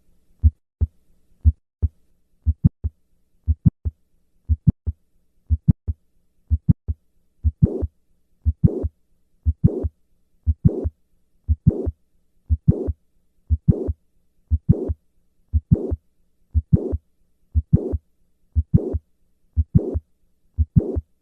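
Heart sounds of a patient with mitral valve prolapse, about one beat a second. The first several beats are short, sharp lub-dub pairs; from about seven seconds in, each beat also carries a systolic murmur.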